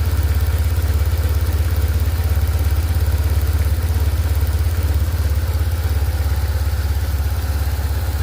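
BMW R1150GS air/oil-cooled boxer twin idling steadily with an even pulsing beat, warm, with the knock it develops when hot slowly starting to come in; the owner places the knock at the lifters.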